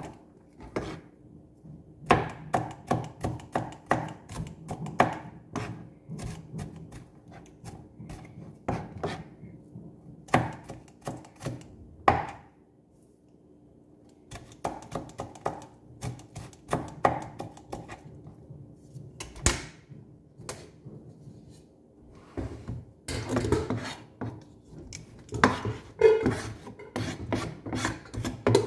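Kitchen knife chopping onion on a plastic cutting board: quick runs of knocks of the blade striking the board, with a short pause about halfway through.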